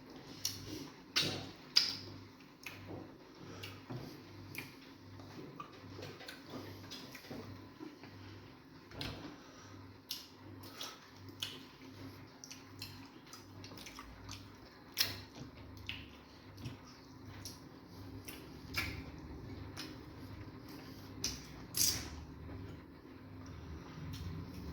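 Close-up eating sounds of fufu with egusi soup: irregular short wet smacks and clicks of mouths chewing and swallowing, a few every second.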